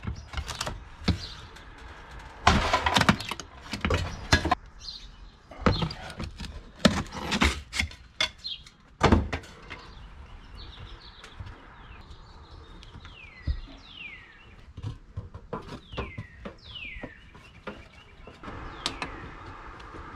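Cedar shakes and a wall vent cap being handled and fitted against the wall: scattered knocks, taps and scrapes through the first half. In the second half a bird calls again and again, each call a quick chirp sliding down in pitch.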